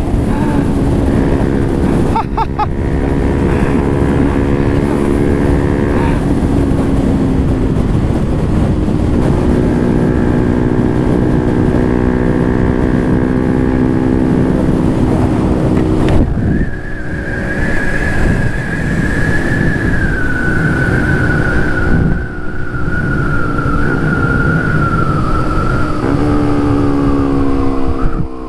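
Bajaj Pulsar NS200 single-cylinder engine running at road speed, heard from the handlebars with wind rushing over the microphone. The engine note holds steady for long stretches, changes pitch in steps, and climbs again near the end as the throttle opens.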